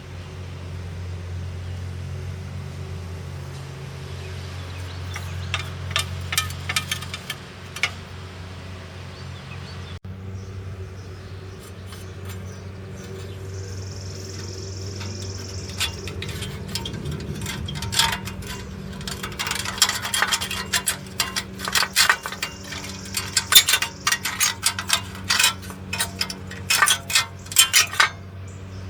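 Low steady hum of an idling vehicle engine, with irregular bursts of sharp metallic clinking and rattling, briefly about six seconds in and then densely through the second half.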